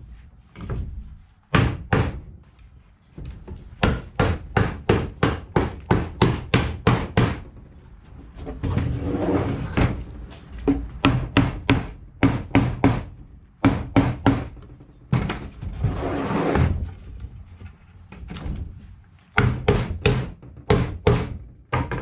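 Hammer blows on the pine box-joint corners of a beehive deep super, driving the joints together: quick runs of sharp wooden knocks at about three a second, broken twice by a longer rasping noise.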